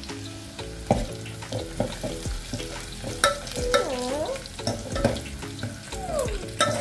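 Whole spices and garlic sizzling in hot oil for a tempering (phodni), with a spoon clicking and scraping against the pan as they are stirred.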